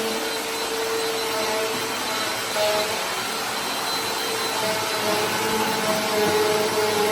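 Vacuum cleaner running, a steady rushing hiss with a motor whine that wavers slightly in pitch.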